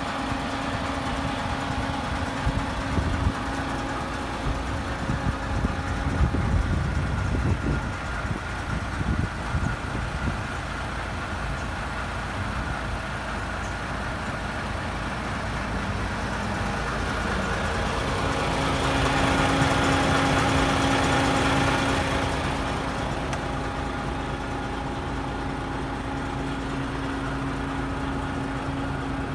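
Paccar 510 bhp Euro 6 diesel engine of a DAF XF tractor unit idling steadily. Low irregular rumbling bumps come a few seconds in, and the sound swells louder for a few seconds past the middle.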